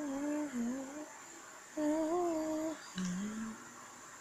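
A person humming a tune with closed lips, in three short phrases of held, gently wavering notes with brief pauses between them.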